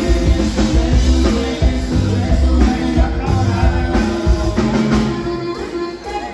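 Live conjunto band playing dance music: held accordion-like tones over a pulsing bass and drums, with some singing, loud and continuous.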